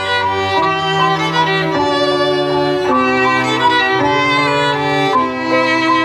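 Violin and cello background music: a violin line over held low cello notes that change about once a second.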